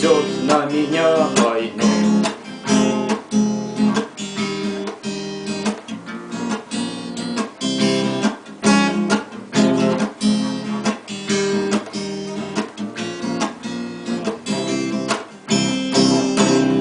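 Acoustic guitar strummed in a steady rhythm, the instrumental close of the song after the last verse. Near the end a final chord is struck and left ringing.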